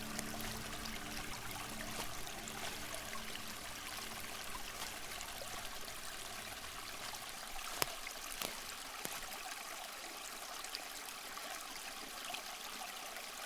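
Flowing stream water, a steady even rush with a few small splashes. Faint music notes fade out in the first few seconds.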